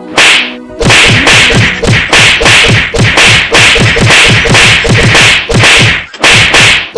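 A rapid run of sharp strikes, about two a second, each with a dull thump under it, with a short break near the end.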